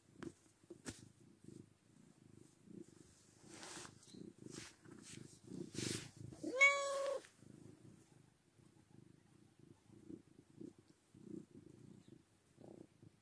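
Domestic cat purring steadily while being stroked, with a few rustles of handling. About halfway through it gives one short meow.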